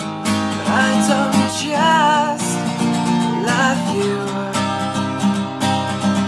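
Background music with a steady beat and a wavering melody line from about one second in that drops out before the fourth second.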